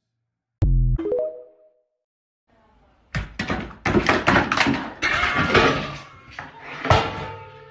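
A single heavy thud, then from about three seconds in a busy run of thumps and scuffling as two cats tussle on a floor mat, with pitched sounds running through it.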